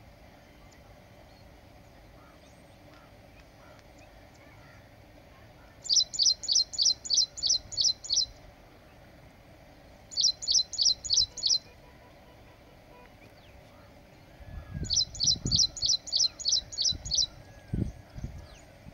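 A small bird calling in three bursts of quick, evenly repeated high chirps, about five a second, the first and last bursts about two seconds long and the middle one shorter. Low thumps come near the end.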